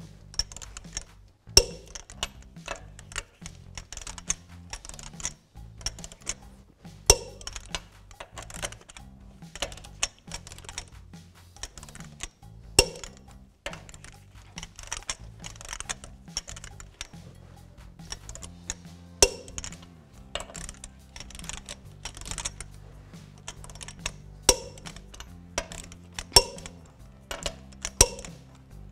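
Torque wrench with a 22 mm socket ratcheting wheel lug nuts down in fast runs of small clicks. A loud sharp click comes every few seconds, about seven times, as each nut reaches the set 140 foot-pounds.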